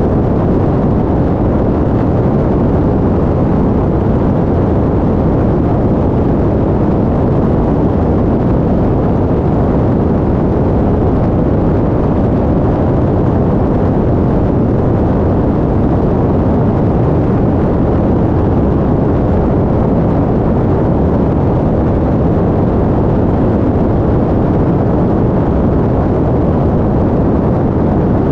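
Steady, loud rush of airflow over a camera mounted outside the fuselage of a Cessna 177RG Cardinal in flight, with the engine and propeller noise blended into the rumble.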